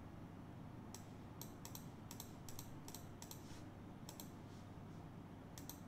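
Faint clicking of a computer keyboard and mouse: a quick run of a dozen or so clicks, then a pair of clicks near the end.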